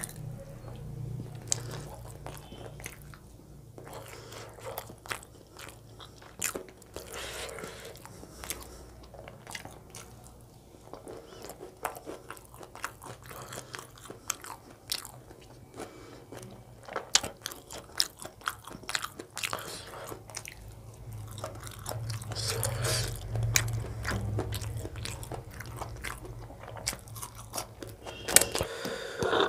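Close-miked chewing of chicken gizzard curry and roti: wet mouth sounds with many small, irregular clicks, busiest a little past two-thirds of the way through.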